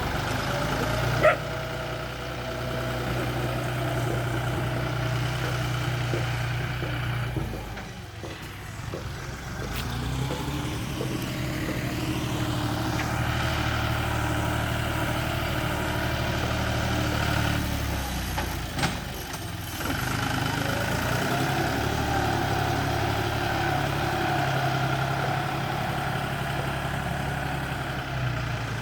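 Bulldozer's diesel engine running, its pitch and level dropping and then rising again twice as it is throttled down and back up. A sharp knock comes about a second in, and another about two-thirds through.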